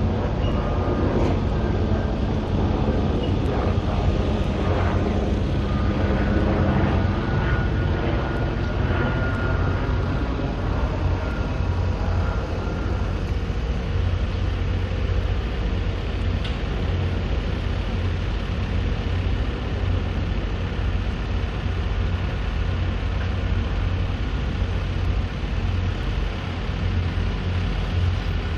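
Steady low rumble of road vehicle noise, with a few faint high tones in the first dozen seconds.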